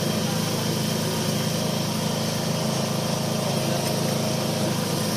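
Foton dump truck's diesel engine idling steadily.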